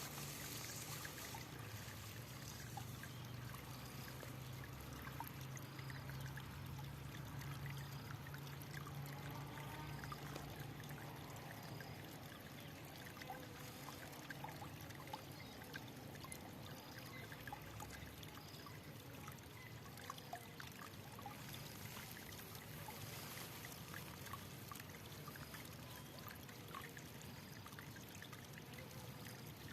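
Water trickling and splashing steadily in a stream, with faint high peeps repeating about once a second through much of it.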